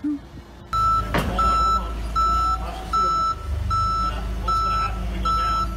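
Propane forklift's backup alarm beeping at an even pace, a little over one beep a second, over the steady hum of its engine. The beeping starts about a second in, and a single knock comes just after it starts.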